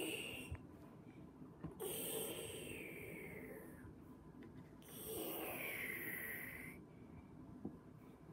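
A person breathing loudly and slowly: a short breath at the start, then two long, hissy breaths of about two seconds each, falling in pitch.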